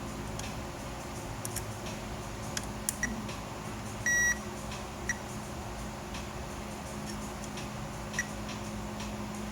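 Multimeter continuity tester beeping: a few brief high chirps and one longer, clear beep about four seconds in, as the probes touch points on an amplifier board being checked for a short. A steady low hum and faint clicks run underneath.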